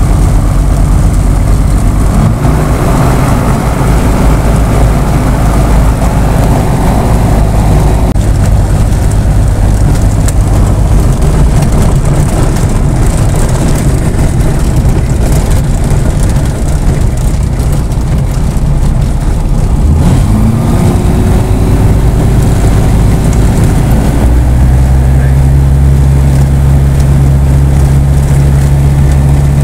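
Light aircraft's Rotax 912 flat-four engine and propeller running, heard from inside the cabin as the plane moves across a grass field. About twenty seconds in the engine note rises, and from about twenty-four seconds it holds steady at higher power.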